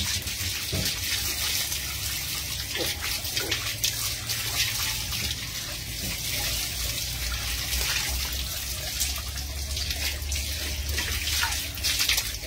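Water running from a tap and splashing onto wet concrete and over a dog being bathed under it, steady throughout.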